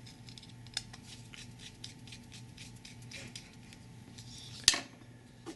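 Small Wiha precision screwdriver turning a body screw into a Kershaw Blur's handle: a run of faint, quick ticks of the bit in the screw head, with one sharper click near the end.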